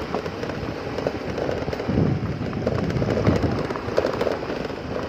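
Crackling rustle of dry grass and brush being pushed through on foot, with a few heavier footfall thumps.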